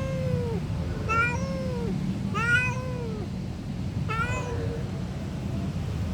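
Domestic cat meowing repeatedly: about four long meows, roughly a second apart, each rising then falling in pitch, over a steady low hum.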